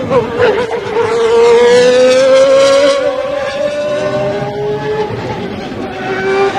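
Honda V12 of a 1991 McLaren-Honda Formula One car at full throttle, its high-pitched note climbing steadily for about three seconds as the car accelerates. The note changes about three seconds in and runs lower and a little softer toward the end as the car slows.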